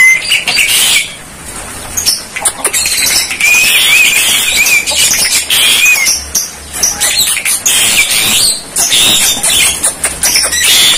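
Javan mynas (jalak kebo) calling: a continuous run of harsh squawks and chatter, with a wavering whistled warble in the middle.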